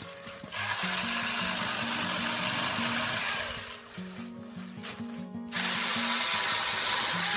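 Saker 4-inch cordless electric mini chainsaw cutting through tree limbs in two runs, about three seconds then about two seconds, over background music.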